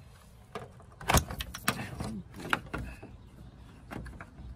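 Sharp plastic clicks and knocks as a tail light's wiring connector is squeezed and pulled free and the plastic light housing is handled. The loudest click comes about a second in.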